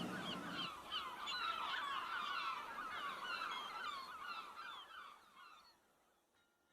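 A flock of birds calling, many short overlapping calls, faint and fading out about five seconds in.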